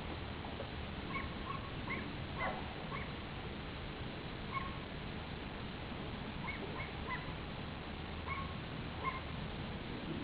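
Teacup Chihuahua giving short, high-pitched yips, about a dozen scattered irregularly, over steady low background noise.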